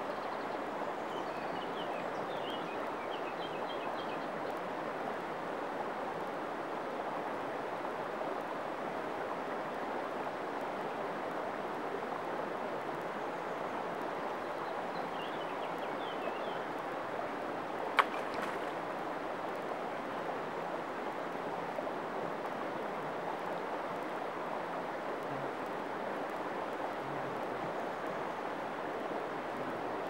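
Shallow, clear river running over a pebble bed: a steady sound of flowing water. Faint high chirps come twice, near the start and a little past the middle, and a single sharp click sounds just after the middle.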